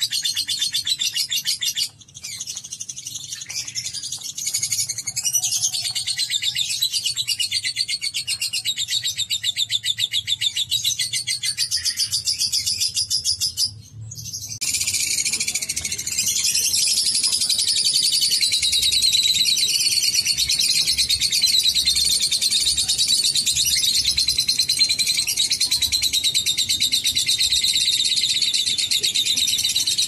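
Caged lovebird chattering in the long, fast, high-pitched trill that keepers call ngekek, a rapid unbroken stream of notes. It breaks off briefly about two seconds in and again about halfway, then runs on steadily.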